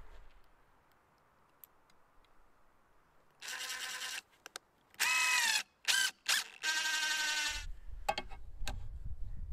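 DeWalt XR cordless impact driver driving a screw through a perforated steel bracket into wood, in several short bursts starting a few seconds in, the last and longest about a second long. Low handling knocks and clicks follow.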